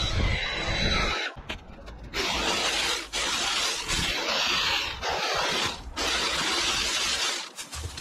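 A cordless leaf blower runs with a steady rushing whine for about the first second, then cuts off. After that comes irregular crunching and rustling of dry, dead grass being cut and pulled apart, broken by several short pauses.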